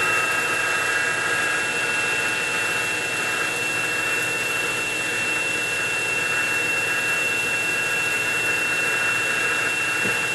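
X2 mini mill's spindle motor running steadily with a drill bit in the chuck, a constant high whine over an even mechanical hum.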